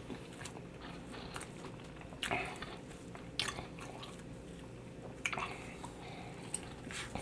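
Close-miked person chewing chicken: soft wet mouth and chewing sounds, with a few louder smacks about two, three and a half and five seconds in.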